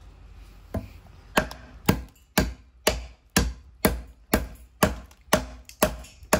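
A handmade dao mèo chopping knife, forged from old twisted reinforcing steel, is chopping into wood to test its edge. The sharp blows come steadily, about two a second, starting about a second in.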